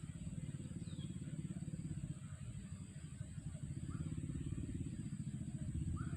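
A small engine running steadily, its rapid firing pulses even and slightly louder near the end.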